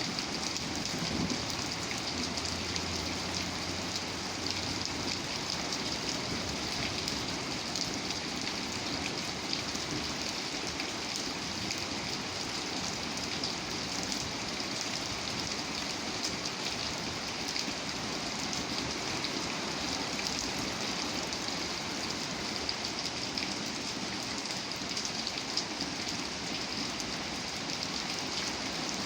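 Steady rain falling, an even hiss thick with the patter of individual drops hitting surfaces. A low rumble dies away over the first few seconds.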